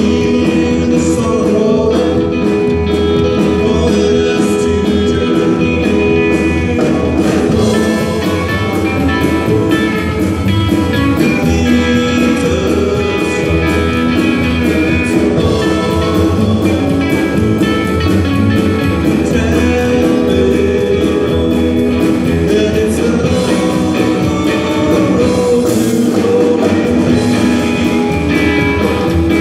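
Live rockabilly-style gospel song played by a small band: electric guitar, upright bass and drum kit, with a man singing lead.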